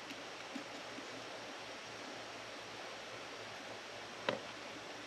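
Faint steady hiss with small plastic clicks as a wiring connector and its pins are handled; one sharper click about four seconds in.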